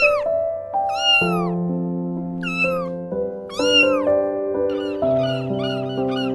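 Cat meowing: four long, drawn-out meows, each rising then falling, followed from about two thirds of the way through by a quick run of shorter calls, over background music with held notes.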